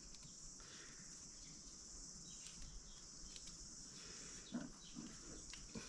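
Near silence: a faint steady high hiss, with a few soft ticks and small handling sounds.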